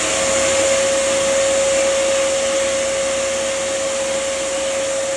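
Small electric vacuum running steadily at full speed, a constant motor whine over a rush of air, as sanding dust is cleared off a spruce guitar top.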